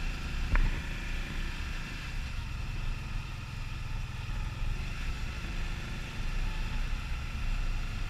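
Can-Am Spyder ST Limited three-wheeled motorcycle riding along, its engine running steadily under a haze of wind and road noise. A single sharp knock comes about half a second in.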